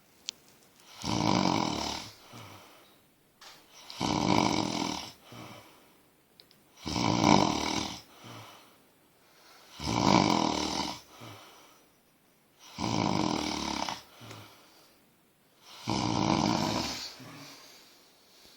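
A person snoring in a steady rhythm: six loud snores about three seconds apart, each lasting about a second and followed by a softer, shorter sound.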